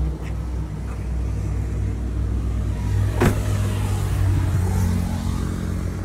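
Car engine running with a steady low rumble. About three seconds in comes one brief sharp whoosh.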